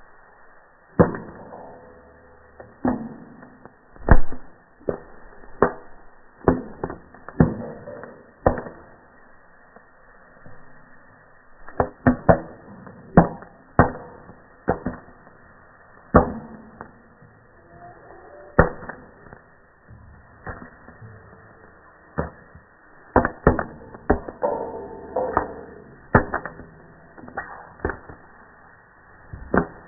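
Popcorn kernels popping in a stainless steel pot: a few dozen separate pops at an uneven pace, bunching up in two flurries, one near the middle and one near the end. The audio is slowed down along with the slow-motion picture.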